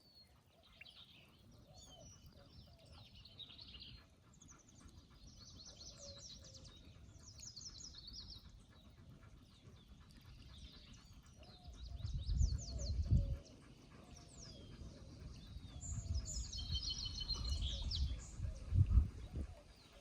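Several small birds chirping and trilling, with many short repeated calls throughout. Two spells of low rumble come partway through.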